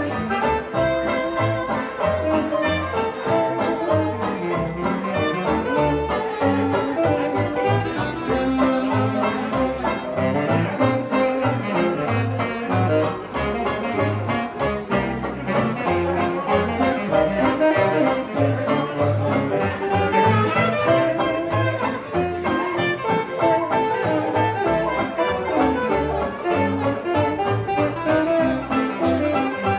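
A small hot-jazz band playing live, with horn and reed lines over banjo and a steady bass beat.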